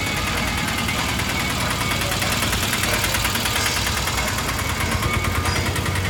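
Auto-rickshaw's small engine running close by, a steady, fast, even chugging.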